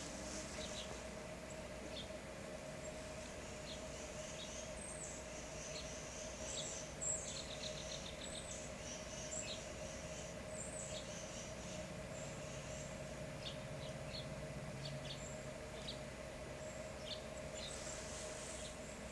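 Small songbirds chirping: short, high chirps scattered throughout, with a quick run of notes about seven seconds in, over a steady low hum.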